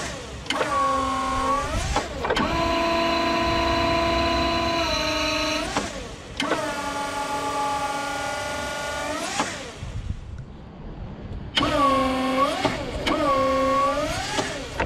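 Small electric forklift's hydraulic pump motor running in about five bursts as the clamp and mast hydraulics are worked, a whine of several tones whose pitch dips and recovers at each start and stop. There is a lull about ten seconds in.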